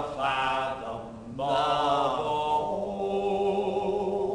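Male voices singing a song, ending on one long held note.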